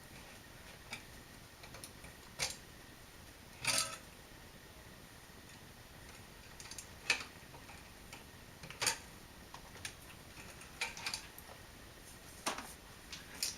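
Scattered light clicks and knocks from hands handling electrical wires and hardware, about seven separate taps at irregular intervals.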